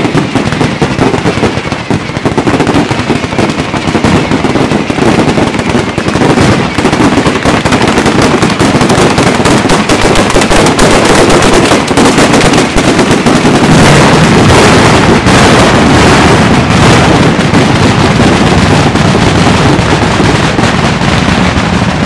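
Daytime firework batteria: long strings of firecrackers going off in a dense, continuous rapid-fire crackle of countless loud bangs, with no gaps.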